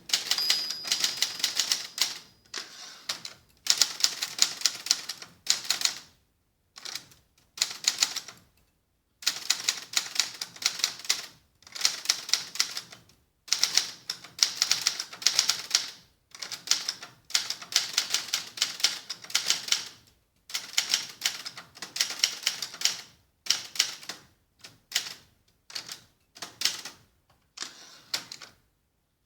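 Adler Gabriele 25 manual typewriter being typed on with its cover off: quick runs of typebar strikes in bursts of a few seconds, separated by short pauses. The typing stops near the end.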